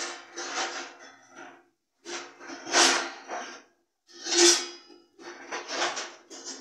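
Electric kitchen mixer grinder run in short pulses, grinding green chutney: about four bursts of one to two seconds each, a harsh grinding noise over a steady motor hum, stopping dead between them.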